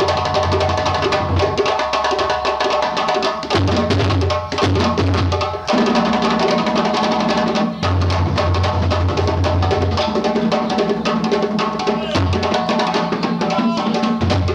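Djembe ensemble drumming, with dense, fast strokes throughout over steady low tones that change pitch every couple of seconds.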